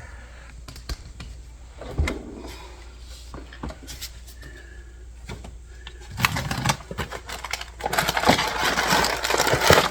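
Kitchen rummaging while looking for leftover garlic bread: scattered knocks and clicks, then rustling of packaging for the last two seconds.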